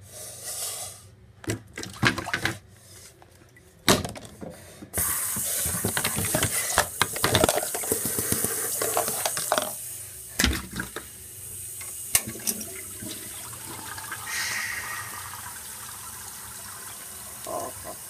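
Toilet being flushed: a sharp knock, then about a second later a loud rush of water that lasts several seconds and eases into a quieter, steady hiss of the tank refilling.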